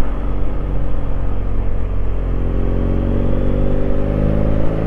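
BMW F800GS motorcycle's parallel-twin engine running steadily while riding, its pitch rising slowly through the second half as it picks up speed.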